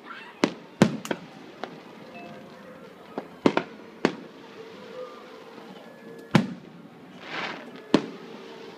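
Aerial fireworks bursting in the distance: about ten sharp bangs at irregular intervals, several close together in the first half and a few more spaced out later. A brief rushing hiss comes shortly before the last loud bang.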